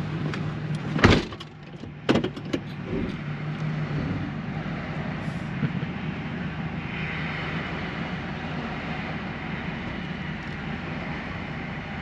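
Vehicle engine idling steadily with a low hum, heard from inside the cab. Two sharp knocks come about one and two seconds in, and a soft hiss joins about halfway through.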